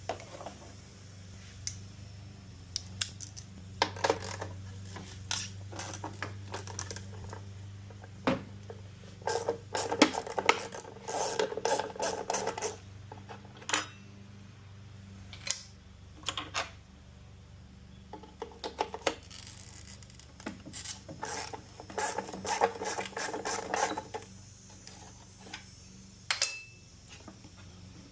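Ratchet wrench clicking in short, rapid runs, loosening the 11 mm bolts of a pickup's headlight bucket, among scattered clicks and knocks of tools and metal parts.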